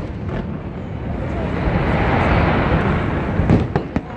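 Aerial fireworks shells bursting: a rushing rumble of reports that swells to a peak midway, then a few sharp bangs near the end.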